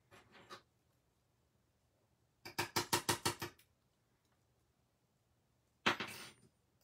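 A thin metal cutting die tapped against the tabletop in a quick run of about eight light taps, knocking the die-cut paper pieces loose. Near the end comes a single sharper knock followed by a brief scrape.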